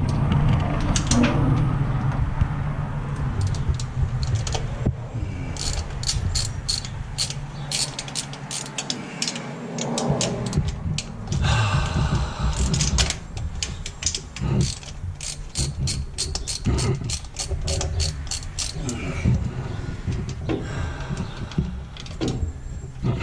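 Socket ratchet wrench clicking in quick runs as bolts are worked loose, over a steady low hum.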